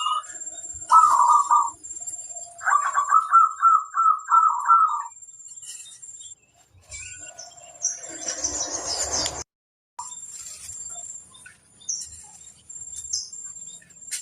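Zebra dove (perkutut) cooing: a short coo about a second in, then a longer phrase of evenly repeated coo notes from about two and a half to five seconds. A steady high-pitched whine runs underneath, and a brief rustling noise comes around eight to nine seconds.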